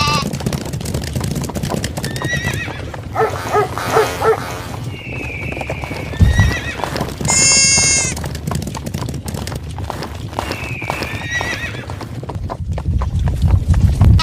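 Stampede of hoofed animals: dense galloping hoofbeats over a low rumble, with animal calls every few seconds. The loudest call is a long, high one a little past the middle.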